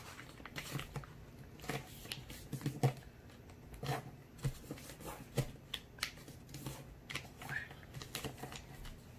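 A square of A4 paper being folded and creased by hand, with irregular crisp rustles and small taps as it is handled against the tabletop.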